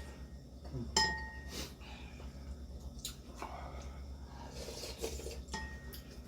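Cutlery clinking against a bowl while eating: a sharp ringing clink about a second in and another near the end, with softer eating and dish sounds between, over a low steady hum.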